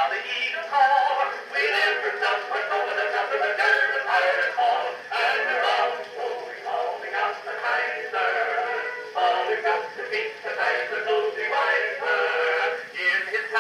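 A recording of a First World War-era popular song playing: singing over music. It sounds thin, with no bass.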